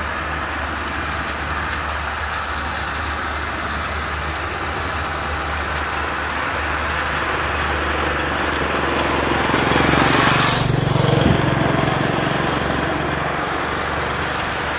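Home-built rice combine harvester running in the field: a steady drone of its engine and machinery. It swells louder with a hiss about ten seconds in, then settles back.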